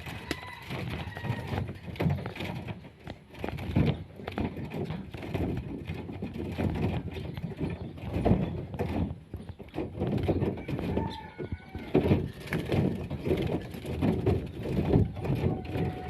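Close rustling and irregular thumping, with a few faint short chirps of weaver birds now and then.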